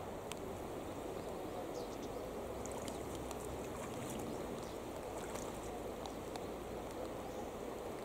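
Steady rush of a wide river flowing over shallow rocky riffles, with scattered light ticks of falling rain.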